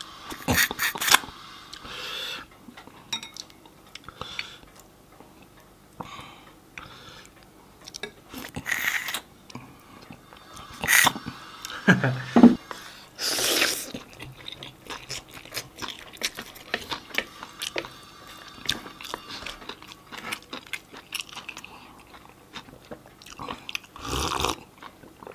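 Close-miked chewing and wet mouth smacking with many small clicks and the odd crunch, as a man eats rich buffalo meat and bone marrow. About thirteen seconds in comes a louder slurp of soup, and near the end gulps of a drink.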